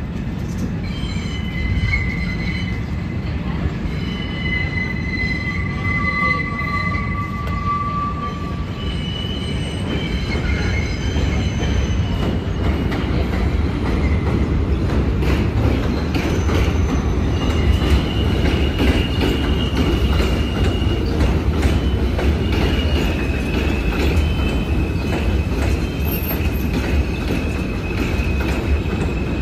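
R160A subway train rolling into an elevated station on a curve, its steel wheels squealing against the rails in long high-pitched tones that shift in pitch. A low rumble of wheels on track builds as the cars come alongside.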